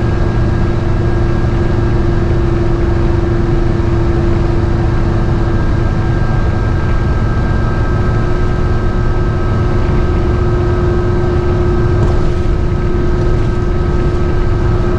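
GMC motorhome under way, heard from inside the cabin: a steady low engine and road rumble with a constant faint whine over it.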